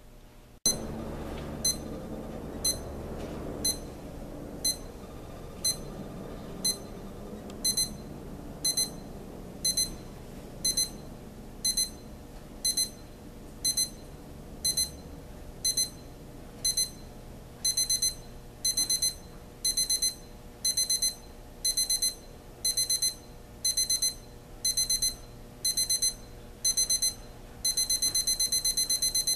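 Equity 30221 alarm clock's electronic alarm beeping, a high piercing beep about once a second that grows longer and louder as the 4-stage ascending alarm steps up, then switches near the end to a continuous rapid beeping.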